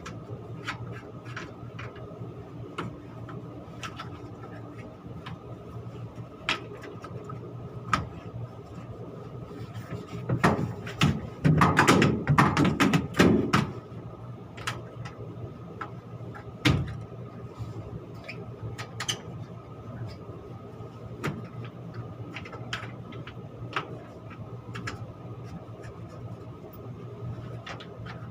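Metal clanks and knocks from air handling unit panels and filter frames being handled and fitted, over a steady machinery hum. A burst of loud clattering comes about halfway through, then a single sharp knock.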